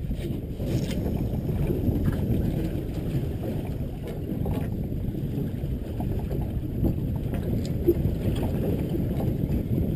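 Steady low rumble of wind on the microphone and sea wash around an offshore fishing boat, with a few faint ticks.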